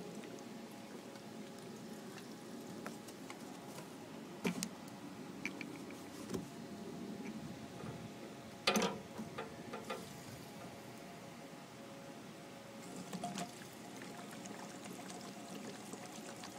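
Gasoline pouring from a plastic gas can into a small engine's fuel tank, a faint steady trickle. A few knocks of the can against the tank, the loudest about nine seconds in.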